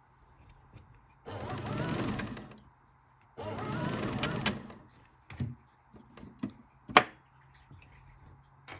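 Toy washing machine's drum motor whirring in two short spells of about a second each, like a wash rhythm, followed by several small clicks and knocks, the sharpest near the end.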